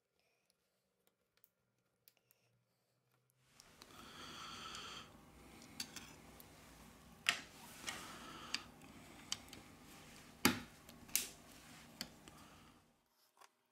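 Sharp clicks and taps of a smartphone's plastic-and-metal motherboard cover being set in place with tweezers and pressed down onto the phone frame, over a faint steady hiss. A short high whine comes about four seconds in, and several clicks follow, the loudest about seven and ten seconds in.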